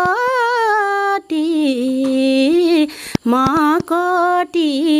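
A woman singing a Nepali folk song in a single voice without instruments, in long held notes that slide and waver in pitch, with a short break for breath about three seconds in.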